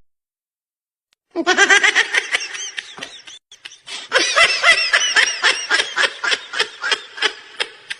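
High-pitched laughter in quick "ha-ha" pulses: a short laugh starting after about a second of silence, then a longer run of rapid pulses that gradually fades out.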